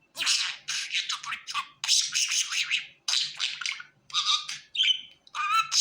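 Budgerigar warbling and chattering in quick, scratchy bursts of rapid notes, broken by brief pauses.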